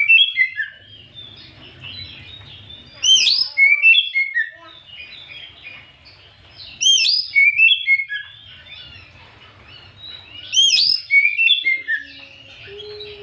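Oriental magpie-robin (kacer) singing: each phrase opens with loud, rising whistles and runs into quick chattering notes. The same phrase comes round evenly about every three and a half seconds, three times, as a looped lure song meant to set other magpie-robins singing.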